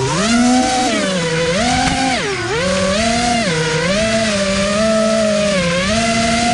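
FPV quadcopter's electric motors and propellers whining, the pitch swooping up and down about once a second with the throttle, heard from the camera on board.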